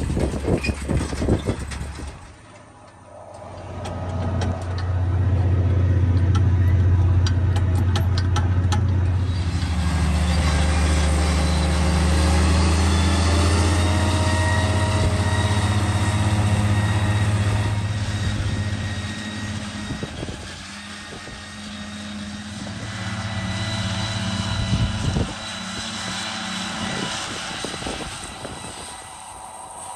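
Farm tractor engine running steadily close by, loud for about fifteen seconds, then easing off, coming back up briefly and fading away near the end. Wind rumbles on the microphone in the first couple of seconds.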